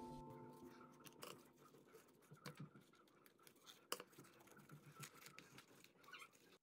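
Faint rustling and crinkling of newspaper and plastic wrapping being handled, with scattered small clicks and one sharper click about four seconds in.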